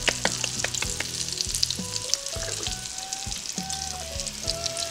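Floured beef short ribs sizzling in hot oil and butter in an Instant Pot on its sauté setting, with many small crackles. Soft background music with held notes plays under it.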